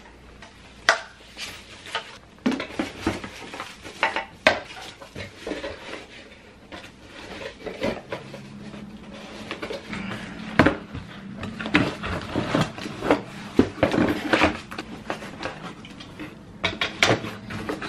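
Irregular knocking, clattering and handling noises of items and packaging being packed back into a cardboard box, with a few sharper knocks scattered through.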